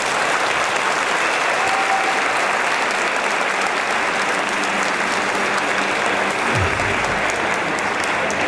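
Arena audience applauding steadily.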